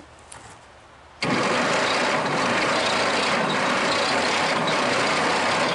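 Chrysler industrial 218 flathead six cranked over by its starter for a compression test, starting about a second in and running steadily. The cylinder reads just a little over 60 psi, too low to run, which the owner puts down to valves not seating.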